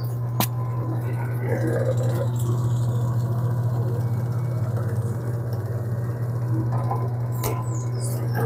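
Electric pasta roller running with a steady low hum as homemade pasta dough is fed through its rollers, with a sharp click about half a second in and another near the end.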